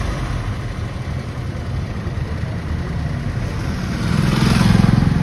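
Maruti WagonR petrol/CNG car engine idling, with a louder stretch for about a second near the end. The engine is still running on petrol while the factory CNG kit waits to switch over to gas after a broken sensor wire was repaired.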